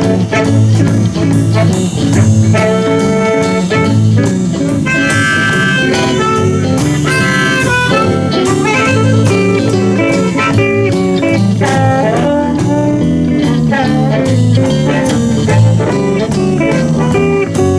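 Live blues band playing the instrumental opening of a shuffle in A, with drums, bass, electric guitars, saxophone and harmonica over a steady beat.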